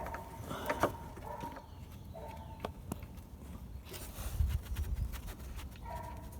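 Scattered light clicks and knocks as the Torx drain plug is worked out of a Subaru front differential by hand and oil starts into the drain jar. A few short high tones come and go behind them, and there is a low rumble about four seconds in.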